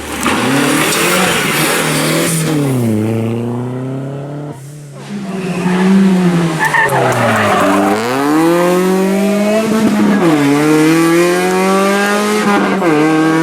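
Rally car engine revving hard under load. Its note climbs and then drops sharply several times as it goes through the gears, with a brief lull a little before the middle.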